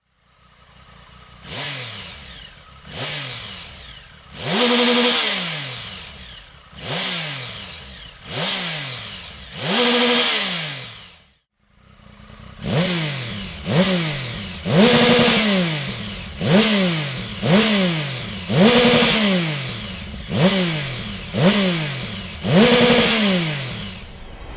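Triumph Tiger 1050's three-cylinder engine revved in repeated stationary blips through a Dominator aftermarket exhaust silencer. Each rev rises quickly and falls back to idle. About six revs, then a brief break, then about ten quicker revs in a row.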